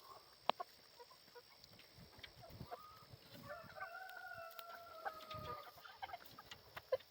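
Meat chickens vocalising softly, with one long drawn-out call of about two seconds midway, amid scattered sharp clicks and taps.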